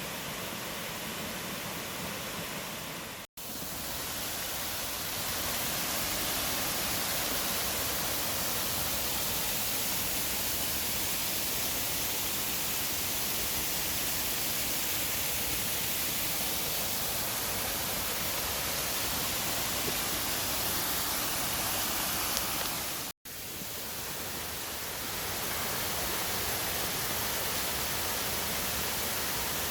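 Waterfall rushing steadily, an even hiss of falling water. The sound cuts out for an instant twice, and after each cut it returns and grows slightly louder.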